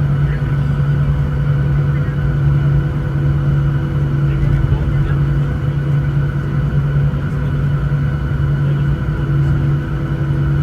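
Boeing 737-900ER cabin noise during taxi: the CFM56-7B turbofans running at low taxi power together with the air-conditioning packs, a loud, steady drone with a strong low hum and a few fainter steady tones above it.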